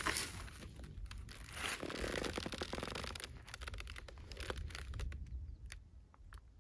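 Rustling, crackling and crunching of a person settling down onto dry grass and ground, over a low rumble of wind on the microphone; the rustling thins out in the second half.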